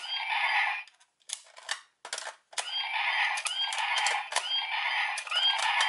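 Electronic shooting sound effects from the speaker of a DX G.U.T.S. Spark Lens toy in hyper gun mode, mixed with plastic clicks of its trigger and buttons. One blast comes at the start, then a few clicks, then from about two and a half seconds in a rapid string of repeated laser-firing sounds.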